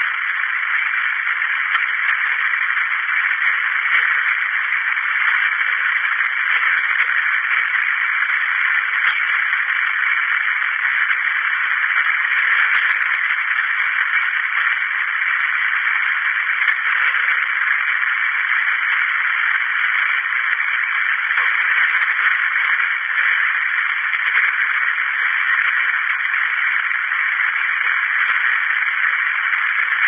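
Radio static: a steady hiss of white noise from a radio tuned off-station, thin and without bass as through a small speaker.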